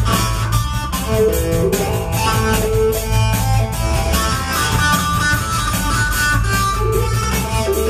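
Dub track at 150 bpm: sampled drums and a deep, continuous bass guitar line under a melody of short plucked notes on an electric phin, the Thai lute.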